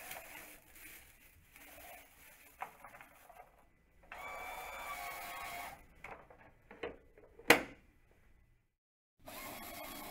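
Small electric motor of a Brill Seat One automatic sanitary toilet seat whirring steadily as it advances the plastic seat-cover film, once for about a second and a half near the middle and again near the end. In between come a few light plastic clicks and one sharp, loud snap.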